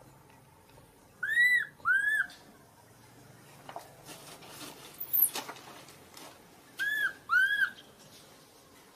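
Newborn macaque crying: four short, high-pitched arched coo calls, each rising and falling, in two pairs, one pair about a second and a half in and the other about seven seconds in. A brief very high falling chirp comes midway between them.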